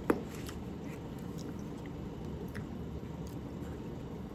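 A person chewing a mouthful of noodles. There is a sharp click about a tenth of a second in, then a few faint ticks.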